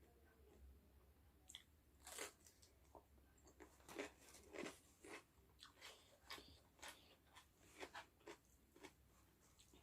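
Close-up chewing of crispy fried chicken (ayam geprek): a string of short, sharp crunches as the battered coating is bitten and chewed.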